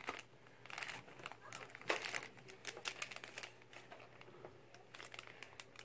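Faint crinkling and rustling of packaging as diecast toy cars are unwrapped and handled, with scattered light clicks.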